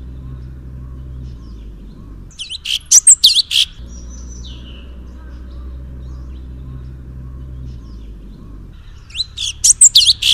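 Songbird song from a bird-training 'masteran' recording: two bursts of loud, rapid chirps and looping whistled notes, about two seconds in and again near the end. A steady low hum and faint soft twittering carry on between the bursts.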